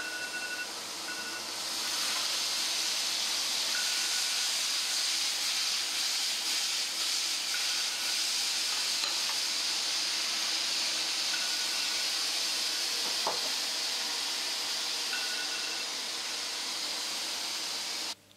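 Sliced mushrooms sizzling in oil in a frying pan, a steady hiss that swells about two seconds in.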